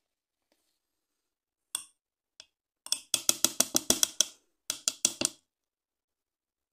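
Wooden spoon knocking against a metal cooking pot as peanut butter is worked into a thick curry. Two single knocks come first, then a quick run of about ten knocks at roughly seven a second, then four more.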